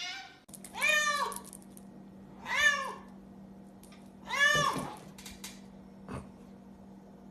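A cat meowing three times, each call about half a second long, rising and then falling in pitch, with a faint steady hum behind.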